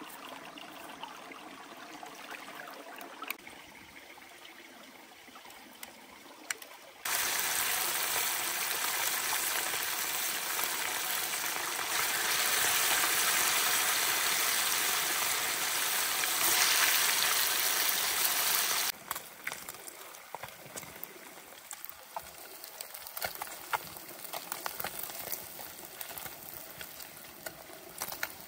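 Running stream water trickling, with small clicks and knocks. About a quarter of the way in, a much louder rush of water cuts in abruptly and stops just as suddenly about two-thirds of the way through.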